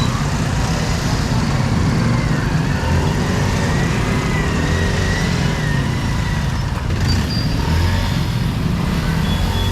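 Road traffic: the steady rumble of motor vehicle engines running close by, with no breaks.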